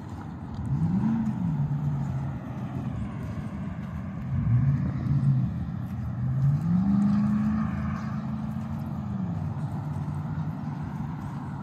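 A motor vehicle engine speeding up and easing off, its pitch climbing and dropping several times. The longest, highest climb comes about seven seconds in and holds for about two seconds before falling away.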